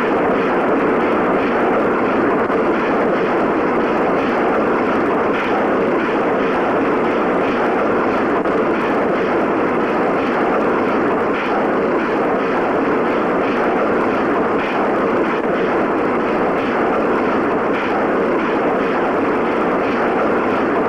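Multiple rocket launcher firing a ripple salvo: a loud, continuous rushing roar of rocket motors that holds steady for about twenty seconds.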